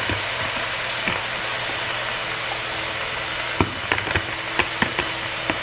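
Chicken breasts frying in oil in a pan, a steady sizzle, with a few sharp clicks in the second half.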